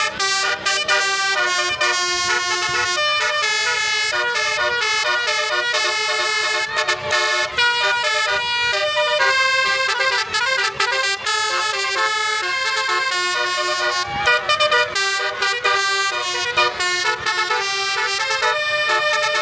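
Multi-tone telolet (basuri) horn playing a melody: several horn trumpets sound together in chords that step quickly from note to note, loud and almost unbroken, with a few short gaps about two-thirds of the way through.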